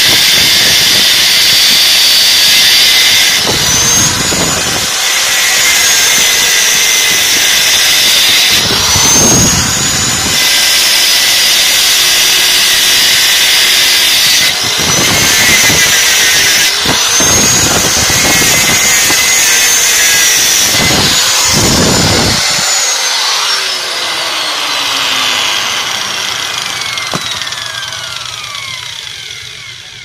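Angle grinder cutting through the end windings of a washing machine motor stator, its high whine dipping under load and picking back up several times. Near the end it is switched off and the whine falls away as the disc spins down.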